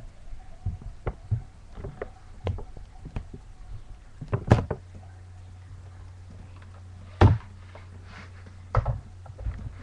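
Scattered knocks and clicks of handling, the loudest about halfway through. Right after it a low steady hum starts and keeps on, with two more sharp knocks later.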